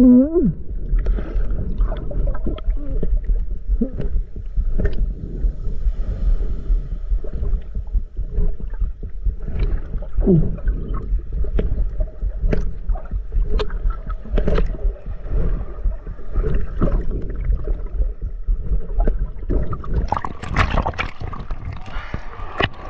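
Sea water heard underwater: a steady, muffled low rumble with scattered small clicks and bubbling as a swimmer moves nearby. About twenty seconds in, the sound turns brighter and splashier as the microphone breaks the surface.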